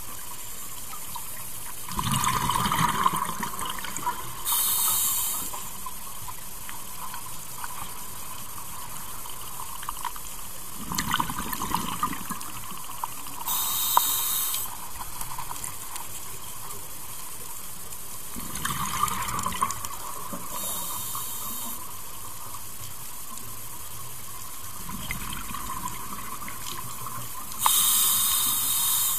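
Scuba diver breathing underwater through a regulator, about four breaths. Each is a rumble of exhaled bubbles, then a couple of seconds later a short hiss from the regulator on the inhale, about one breath every seven or eight seconds.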